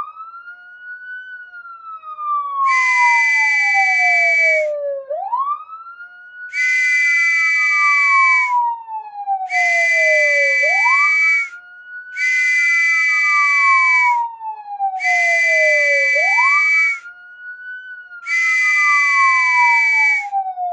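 Police siren wailing, each cycle rising quickly and falling slowly, about every five and a half seconds. Over it sound six loud, long blasts of a police whistle, each a steady high note lasting about two seconds.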